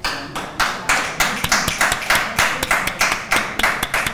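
Hand clapping in applause for award winners, made up of distinct, evenly spaced claps at about four a second rather than the wash of a large crowd.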